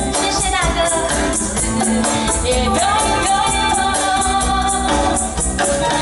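A woman singing a Mandarin pop song live into a microphone, accompanied by a live band with a steady beat.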